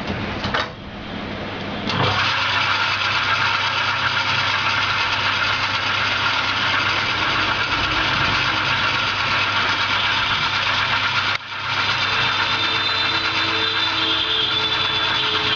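Steady machine noise with a low hum, starting about two seconds in and dropping out briefly about eleven seconds in.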